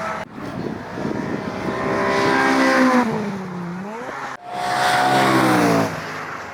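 Car engine revving hard under load, its pitch climbing, dipping and climbing again, over tyre noise. The sound cuts off suddenly twice.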